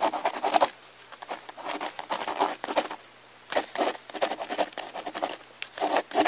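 A cat's claws scratching and scrabbling on tree bark in quick irregular flurries, with two short lulls between them.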